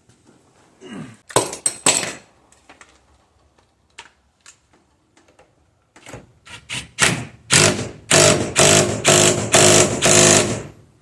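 Impact wrench hammering in short bursts, tightening the steering wheel's main nut. A few sharp bursts come first, then a run of about eight loud bursts, roughly three a second, near the end.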